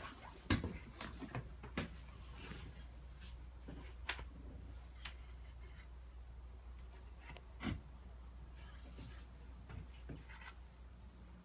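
Trowel scraping and tapping as thinset tile mortar is spread, with scattered short knocks; the sharpest knock comes about two thirds of the way through.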